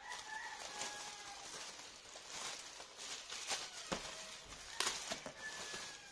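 Clear plastic packaging crinkling and rustling as a laptop bag sealed in it is handled and lifted out of a cardboard box lined with bubble wrap, with a few sharper crackles about four and five seconds in. A rooster crows in the background near the start and again near the end.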